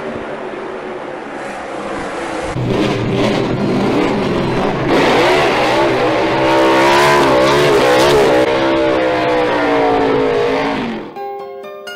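Stock-car engine sound effect: a steady drone, then from about two and a half seconds in the engine revs hard and holds high with wavering pitch as in a victory burnout, dropping away about eleven seconds in. Music with plucked strings starts near the end.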